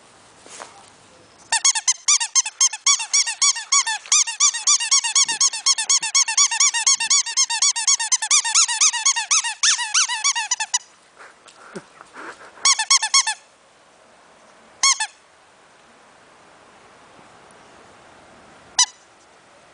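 Squeaky dog toy squeezed over and over by a pug puppy's bite, about five squeaks a second for some nine seconds, then a short burst of squeaks and two single squeaks.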